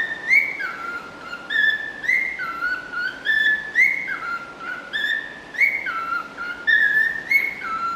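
Pet cockatiel whistling a learned tune: the same short phrase, a higher note stepping down to a lower one, repeated about once a second.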